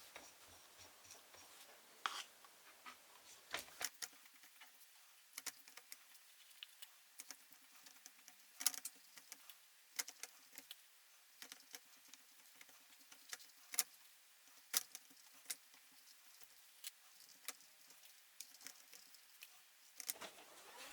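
Faint, scattered light clicks and taps of small parts being handled and set down, a few seconds apart.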